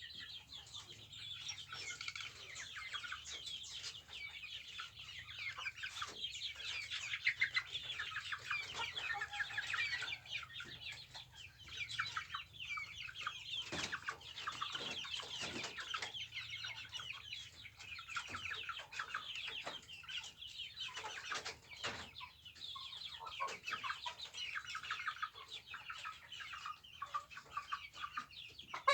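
A flock of young kampung chickens peeping and cheeping together in a dense, continuous chorus of short high calls, with a few knocks in between.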